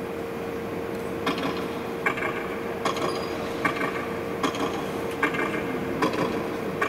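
Mechanical clicking sound effect from a projection show's soundtrack over loudspeakers: sharp, evenly spaced clicks about every 0.8 s, starting about a second in, over a steady hum.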